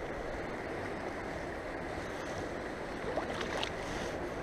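Steady rushing of a shallow river running over rocks, with a few faint ticks about three seconds in.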